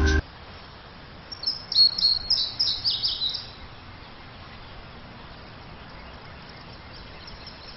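A small bird chirping in a quick run of short, high notes for about two seconds, starting about a second in, over a steady background hiss.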